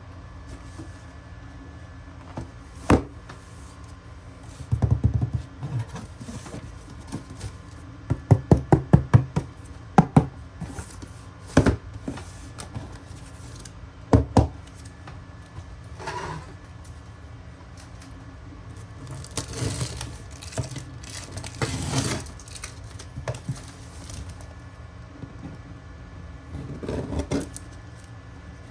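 Handling noise from a cardboard shoebox being opened and its contents taken out: scattered knocks and thunks, a quick run of taps, and a few longer stretches of rustling and scraping.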